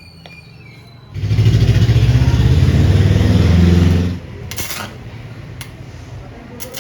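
Electric arc welding on a steel gate frame: a loud buzzing, crackling hiss starts sharply about a second in, holds for about three seconds and cuts off. A few sharp taps follow.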